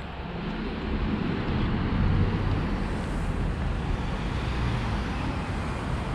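Road traffic going by: a steady rumble of passing cars that swells about two seconds in.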